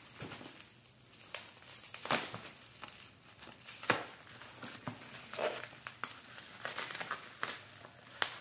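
Black plastic parcel wrapping crinkling and crackling as it is handled and its packing tape is cut open, with a couple of louder sharp crackles about two and four seconds in.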